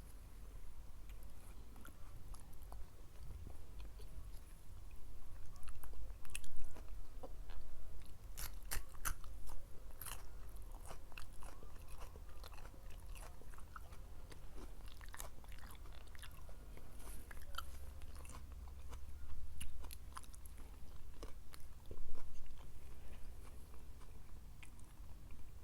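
Close-miked eating: a person biting and chewing food, with crisp, crackling crunches. The loudest bites come about six seconds in, in a cluster a few seconds later, and again near the end.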